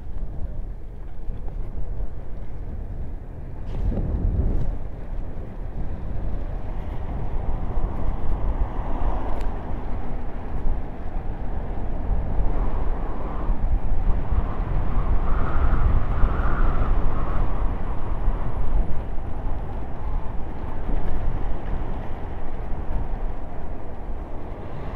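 Wind buffeting the microphone and tyres rolling on asphalt while coasting downhill on a Trottibike, a large-wheeled kick scooter. It is a steady rushing rumble that gets a little louder a few seconds in.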